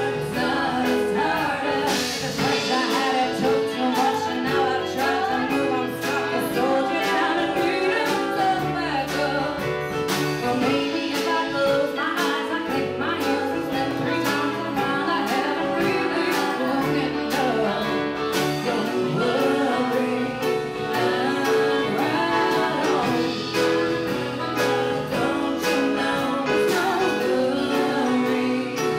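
Live band playing a song: two women singing into microphones over guitar accompaniment.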